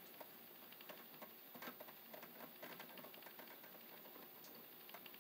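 Faint, irregular clicks and scrapes of stiff insulated copper electrical wires being handled and joined together in a plastic electrical box.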